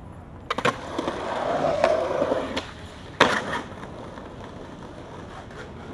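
Skateboard on concrete: a couple of sharp clacks of the board about half a second in, wheels rolling with a noise that builds for about two seconds, then one loud slap of the board a little after three seconds.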